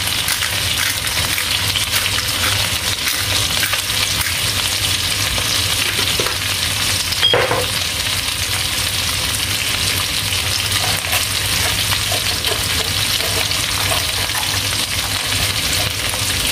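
Chicken pieces sautéing with onion and ginger in oil in a wok, a steady frying sizzle, with a single brief clink about halfway through.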